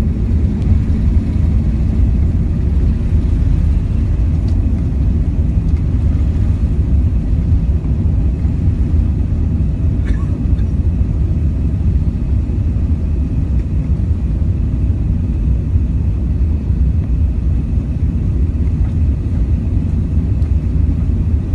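Airbus A380 taking off, heard as a loud, steady low rumble of its jet engines.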